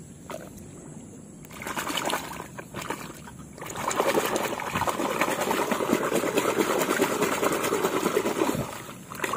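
Muddy water splashing and sloshing in a basin as a hand scrubs a mud-caked plastic toy truck under the surface. It is quieter at first, then steady, vigorous splashing runs from about four seconds in until just before the end.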